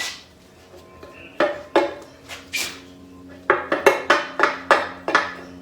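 Dead blow hammer striking the timing cover of a Ford 5.0 V8 to knock it loose from the block, each hit a sharp knock with a brief metallic ring. A few spaced blows come first, then a quick run of about three knocks a second near the end.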